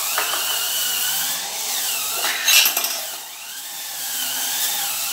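Hurricane cordless electric spin scrubber running, its spinning brush scrubbing the bathroom floor. The motor whine wavers in pitch as the pressure on the brush changes, with a brief louder scrape about two and a half seconds in.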